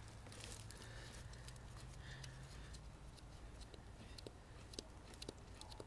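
Quiet soft clicks as a finger pumps the red primer bulb on a Briggs & Stratton lawnmower engine, a few presses about half a second apart in the second half. The engine is not running.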